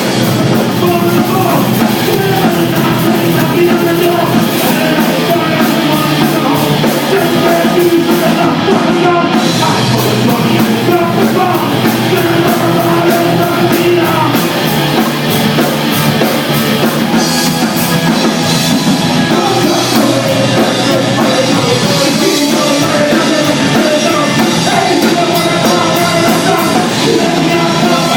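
Loud, fast rock music with distorted guitars, drum kit and shouted vocals, in a punk or metal style.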